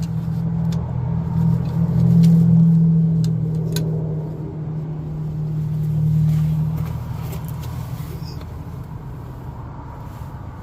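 A motor vehicle engine running with a steady low hum, swelling and then fading out about two-thirds of the way through.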